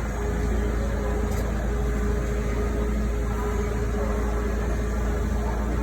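Steady low mechanical hum with a thin steady tone held above it.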